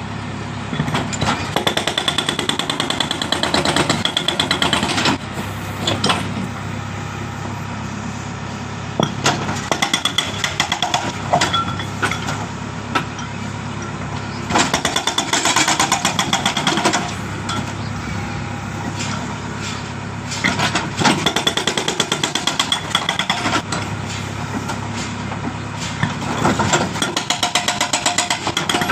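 Hydraulic breaker on a JCB 3DX backhoe loader hammering into a road surface with rapid blows in about five bursts of a few seconds each. The machine's diesel engine runs steadily between the bursts.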